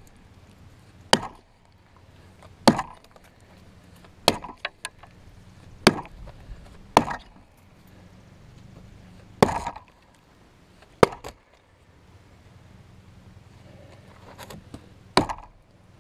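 Hand-forged single-bit axe chopping into a log: eight sharp blows of steel into wood, mostly one to two and a half seconds apart, with a longer pause before the last blow.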